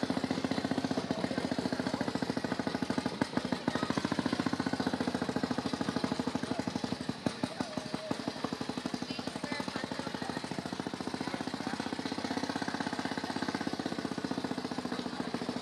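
Railroad motorcar's small engine running with a rapid, even chugging while the car rolls along the track; the engine noise is loud.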